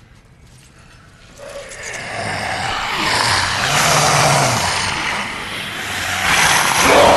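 An infected Darkseeker creature letting out a harsh, rasping shriek. It builds from about a second in to a peak midway, dips, then swells again to its loudest near the end.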